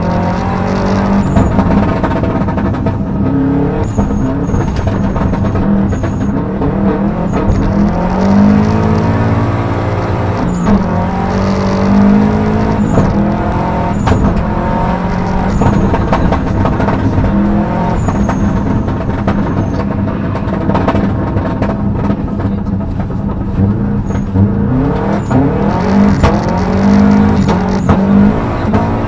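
Subaru Impreza STI rally car's turbocharged flat-four engine, heard from inside the cabin, revving hard and repeatedly climbing in pitch then dropping back as it is driven flat out through the gears, over a constant rush of road noise.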